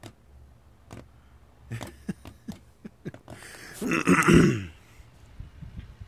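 A small Caframo Dragonfly desk fan running while a cat paws at it, giving a quick series of light ticks and taps. About four seconds in comes a loud, throaty, cough-like vocal sound that falls in pitch.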